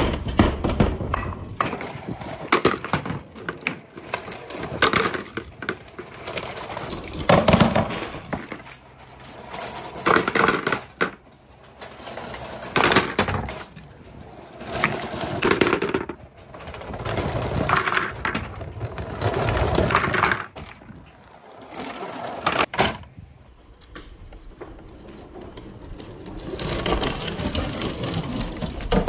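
Balls, crystal balls among them, rolling one after another down a long rain-gutter run and clattering into a plastic pipe elbow. Each run is a rumble that swells and fades every two to three seconds, with knocks as the balls land.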